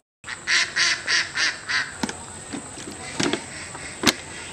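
A duck quacking five times in quick succession, followed by three short sharp clicks.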